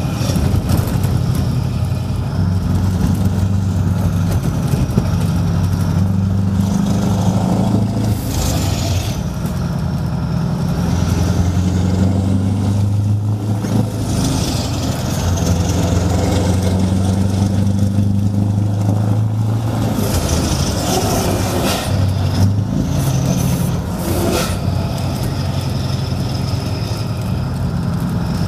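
Scania 164L 580's 16-litre V8 diesel with a loud, deep open exhaust, heard from inside the cab as the truck drives at low speed. The engine note rises and falls several times as it pulls away and eases off, with a high whine rising and falling now and then and a few short hisses.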